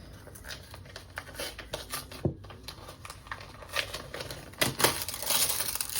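Handling noise: scattered small clicks and taps with paper-like rustling, which grows louder and denser near the end.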